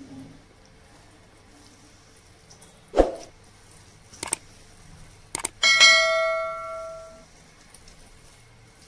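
Edited-in subscribe-button sound effects: a soft thump, two quick mouse clicks, then a bright notification-bell ding that rings out and fades over about a second and a half.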